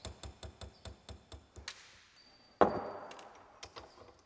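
Small hammer tapping the steel stem out of a blind rivet held upright in a bench vise's jaws: light metallic taps at about four a second. About two and a half seconds in comes one louder metallic hit that rings on for a second or so, then a couple of last taps.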